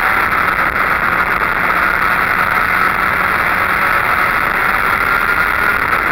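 Go-kart engine running hard at speed, its pitch slowly climbing as the kart accelerates, with a dip a little before the end, under a steady rushing noise on the kart-mounted microphone.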